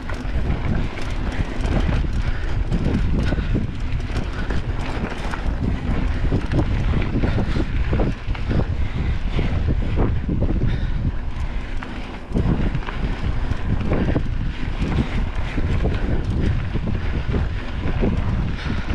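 Wind rushing over the microphone of a riding cyclist, with frequent knocks and rattles from the bicycle running over rough trail ground.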